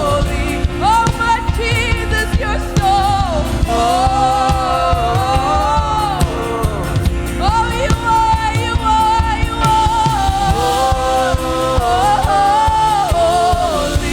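Worship song: a singer holding long notes with vibrato over band accompaniment.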